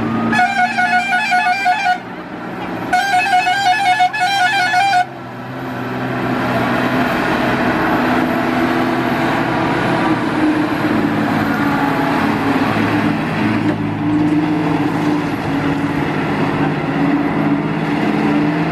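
Heavily loaded Tata truck sounding two warbling, fast-pulsing air horn blasts of about two seconds each, then its diesel engine running steadily under load, growing louder as the truck comes close.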